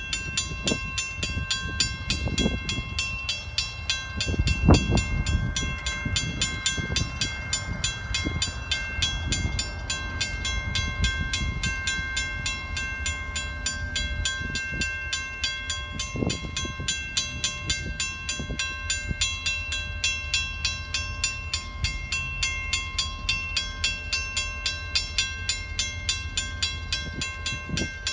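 Railroad crossing warning bell ringing rapidly and steadily, sounding because the signals have been activated for an approaching train. A low rumble runs underneath, with a couple of dull thuds.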